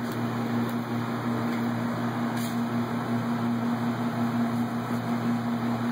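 A steady low machine hum with a whir, unchanging throughout.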